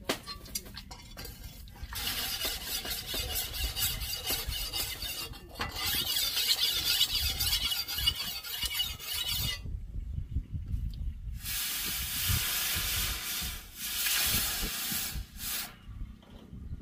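Steel knife blade being sharpened: a rasping hiss in three long passes of about four seconds each, with a short break after the second.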